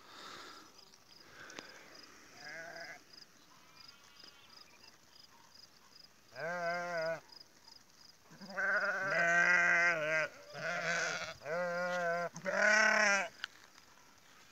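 Kangal sheep ewes bleating. There is one bleat about six and a half seconds in, then a run of four or five louder, wavering bleats close together over the last part.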